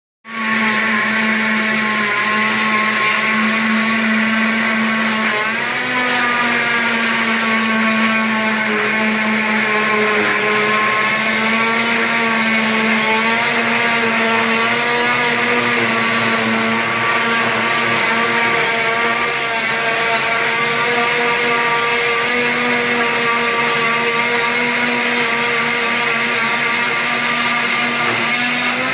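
Electric oscillating cast saw with a dust-vacuum hose running as it cuts through a leg cast: a steady motor whine whose pitch wavers slightly as the blade bears on the cast.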